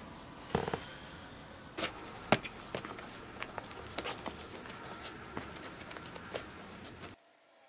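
Shoelaces being pulled and tied on a shoe: soft rustling of lace and fabric with scattered small clicks and taps, cutting off suddenly near the end.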